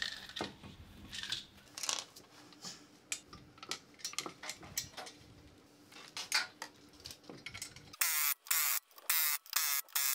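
Lug nuts being threaded onto the wheel studs by hand, with small scattered metal clicks and taps. About eight seconds in, a pneumatic impact wrench starts hammering in short, rapid bursts as the lug nuts are run down.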